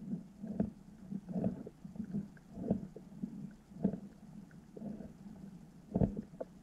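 Underwater sound picked up by a submerged camera: irregular low, muffled thumps and rumbles about once a second, the strongest about six seconds in, with a few faint ticks between them.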